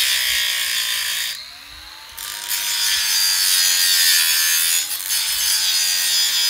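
Angle grinder with a cut-off disc cutting through steel rebar, a loud, continuous grinding hiss. About a second and a half in the cut lets up briefly and the motor's whine rises, then the disc bites again and cutting continues until the grinder stops suddenly at the end.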